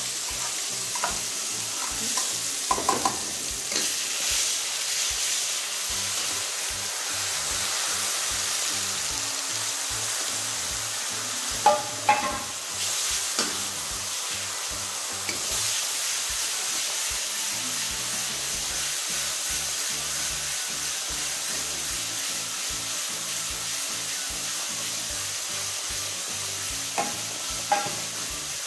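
Spice masala of garlic, onion, green chilli and turmeric sizzling as it fries in oil in a kadhai. A metal slotted spoon stirs it and scrapes and knocks against the pan now and then.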